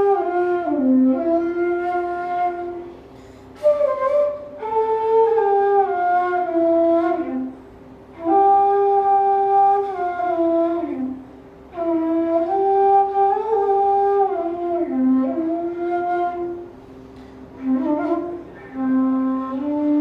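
Background instrumental music: a slow, gliding melody played in phrases of a few seconds, with short pauses between them.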